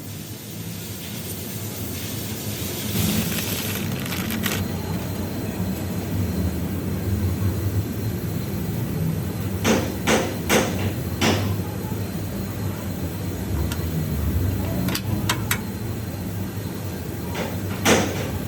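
A car rolling with a steady low rumble, and several sharp knocks from the front suspension: a few around three to four seconds in, three close together about ten seconds in, and more near the end. These are the clunks of a worn stabilizer bar bushing.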